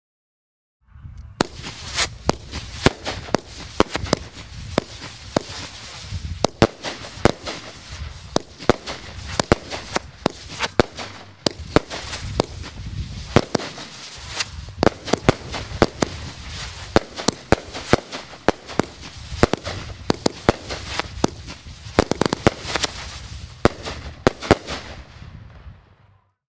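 Spinning Salute 30-shot firework cake firing: a rapid, uneven string of sharp bangs with a constant hiss and crackle underneath, starting about a second in and cutting off near the end.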